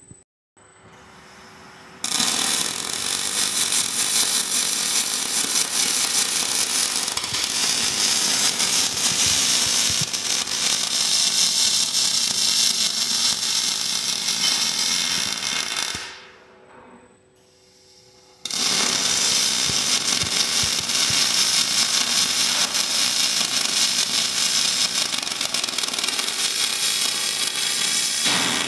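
A KUKA welding robot's MIG torch welding steel tube, its arc crackling and spitting spatter in a dense, steady crackle. The arc strikes about two seconds in, stops for about two seconds past the middle, then strikes again for a second weld.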